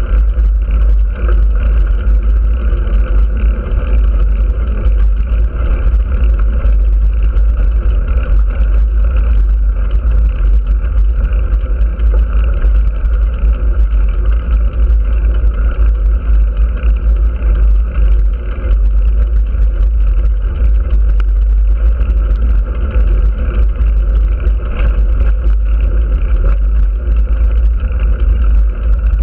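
Wind buffeting a camera's microphone while riding along a road at speed: a heavy, continuous rumble, with a steady hum of the vehicle underneath.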